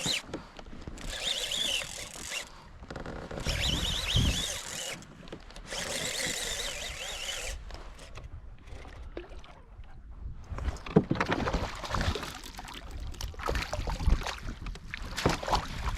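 A fishing reel cranked in four short bursts of whirring while a hooked fish is fought, followed by a run of sharp clicks and knocks.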